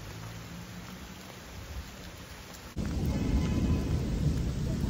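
Rain falling, as an even hiss. Partway through it cuts abruptly to a louder stretch with a strong low rumble under the rain.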